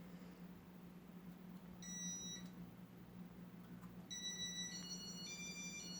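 Electronic beeping: a short beep about two seconds in, then from about four seconds a run of beeps stepping up and down in pitch, over a low steady hum.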